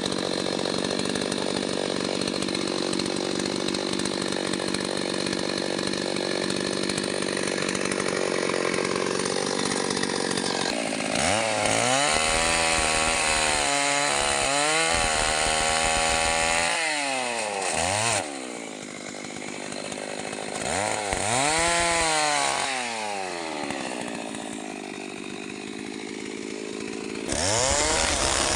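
STIHL MS 381 two-stroke chainsaw running steadily at high speed for about ten seconds. It is then revved up and down several times, dropping twice to a quieter, lower running speed, and comes back to full throttle near the end.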